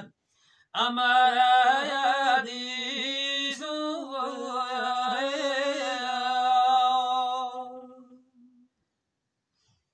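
A man singing unaccompanied Gojri devotional verse, one long wavering, ornamented phrase that starts about a second in and trails away after about eight seconds.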